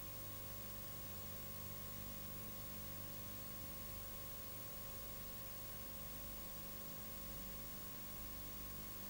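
Faint, steady hiss with a low hum and a few thin steady tones underneath: the background noise floor of the recording, with no music or voices.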